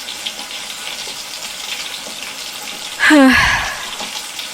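A steady hiss like running water from a tap, with a loud, falling-pitched voice-like sound about three seconds in.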